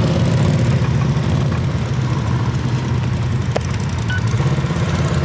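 Side-by-side UTV engine running steadily with an even low hum.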